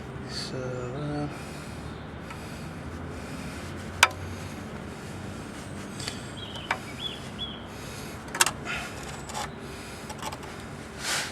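Scattered metal clicks and taps as brake pad retaining pins are worked through a disc brake caliper, with a sharp knock about four seconds in and another about eight seconds in.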